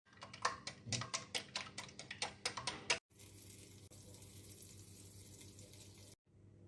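Kitchen food-preparation sounds. First comes about three seconds of irregular sharp taps and clicks. Then, after a sudden cut, a steady high hiss lasts about three seconds and stops abruptly.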